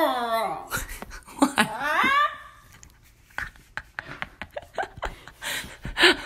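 Pembroke Welsh corgi puppy howling its "awoo": one howl falling in pitch at the start, and a second that rises then falls near two seconds in. Short clicks and soft mouth sounds follow.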